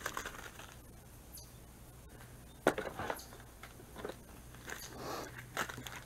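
Faint crinkling and rustling of plastic-and-card packages of fishing spinner lures being handled, with a few short clicks, the sharpest about two and a half seconds in.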